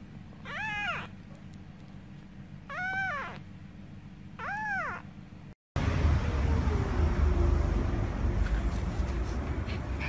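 A young kitten mews three times, each short call rising and then falling in pitch. About halfway through, the sound cuts out and gives way to a steady low rumble.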